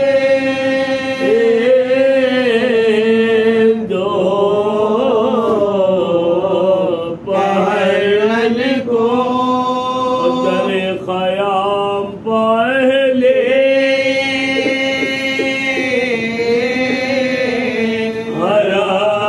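Men's voices chanting a Muharram mourning lament (majlis recitation) with no instruments, long notes held steady under a wavering melodic line, with brief pauses for breath.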